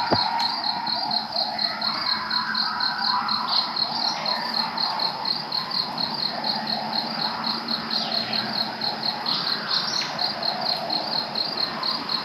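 Night insects chirping in a steady pulse about four times a second. Under them, a distant coyote pack howls and yips in wavering, overlapping calls for most of the stretch.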